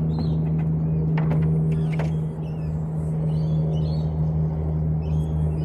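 A steady low engine hum, as of a vehicle running, with a few faint high chirps over it.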